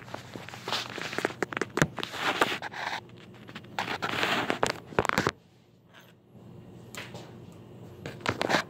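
Phone handling noise: fingers and clothing rubbing and knocking against the phone's microphone in irregular clicks, scrapes and rustles, with a short lull about halfway through.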